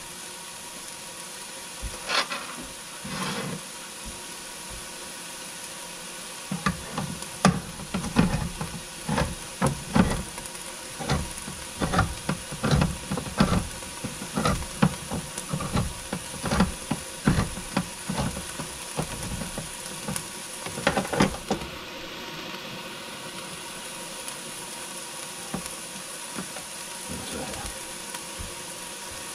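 Hand-cranked can opener working around a can lid: a run of irregular clicks and clunks, about two a second, lasting some fifteen seconds.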